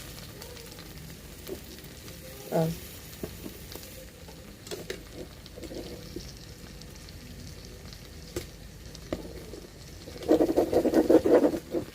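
Chicken pieces frying in a pot, a steady sizzle with a few light clicks. Near the end a louder burst of a voice lasts for about a second and a half.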